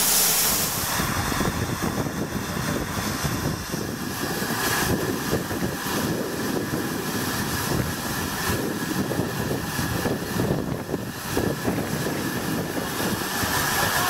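Steam hissing from a steam locomotive's cylinder drain cocks, cutting off within the first second. Then a steady rushing noise with uneven low rumbles from wind on the microphone, with the double-headed steam train standing at the platform.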